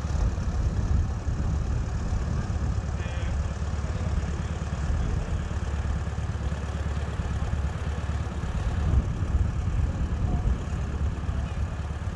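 Engine of a Land Rover-based road-train locomotive idling steadily, with a low, even pulsing sound.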